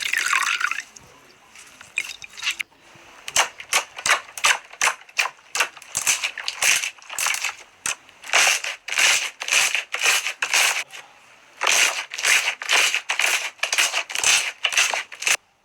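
Slime being pressed and squeezed by hand, making a rapid series of sharp crackling pops, about two to three a second with two brief pauses, ending abruptly near the end.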